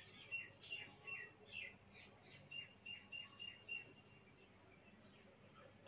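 Faint bird chirps: a quick run of short high chirps, then a string of brief, evenly spaced high notes that stops about four seconds in.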